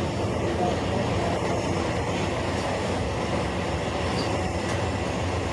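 Steady rumble of wheels on rail heard inside a moving Amtrak Superliner passenger coach.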